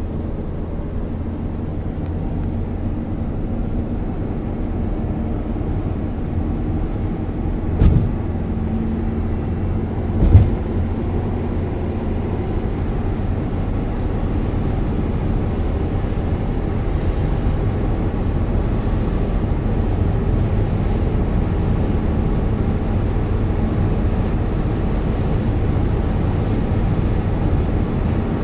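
Steady road and engine rumble inside a moving car's cabin, slowly growing louder. Two short thumps, about two and a half seconds apart, stand out roughly a third of the way in.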